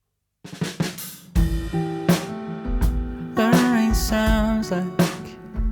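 Song intro played by a live band: drum kit and guitar, with a voice starting to sing about halfway through.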